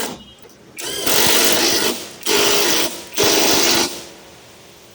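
Impact wrench (a 750 Nm impact gun) rattling in three bursts, tightening the bolts of a newly fitted rear shock absorber.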